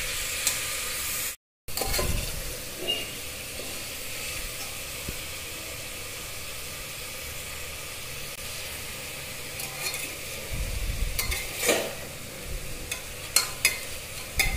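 Chicken pieces and carrots sizzling as they fry in an aluminium pressure cooker, stirred with a metal spatula that scrapes and knocks against the pot several times, mostly near the end.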